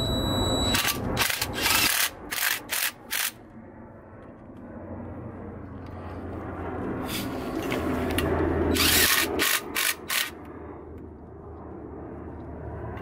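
Cordless drill-driver running on the bolts of a brake hub and rotor in two spells of short bursts: several quick bursts in the first few seconds and a few more around the ninth to tenth second.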